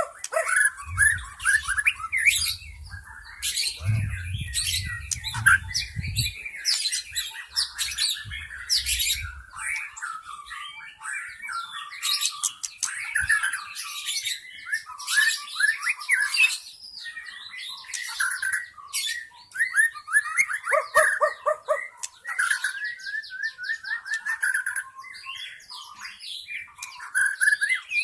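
White-rumped shama singing: a rapid, varied run of chirps, whistles and trills with hardly a pause. A low rumble sits under the song for the first ten seconds or so.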